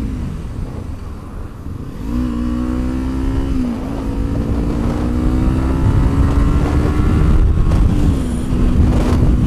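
Kawasaki Ninja 300's parallel-twin engine under way with wind and road rush. About two seconds in the engine note rises as the bike accelerates; it drops back about four seconds in, runs steady and drops again near eight seconds.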